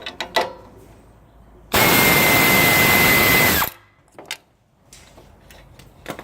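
A couple of ratchet clicks, then about two seconds in a loud tool burst of rushing noise with a steady high whistle, lasting about two seconds and cutting off sharply, followed by a few light clicks.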